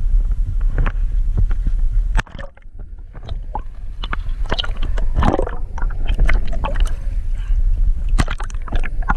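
Camera microphone plunged into the sea: a steady wind-and-water rumble cuts off suddenly about two seconds in as it goes under, giving way to muffled underwater gurgling, then clicking and splashing as it churns through the surface.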